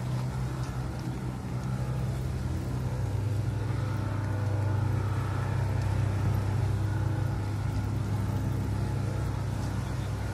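Boat engines running at low speed during a mooring manoeuvre: a steady low drone that grows stronger about three seconds in.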